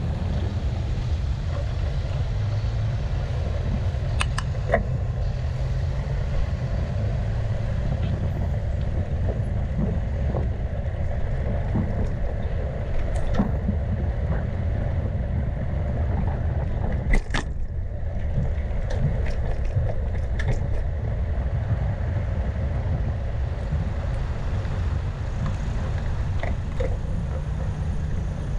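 Wind buffeting the microphone of a camera on a moving bicycle: a steady low rumble, with a few sharp clicks and knocks, the loudest about 17 seconds in.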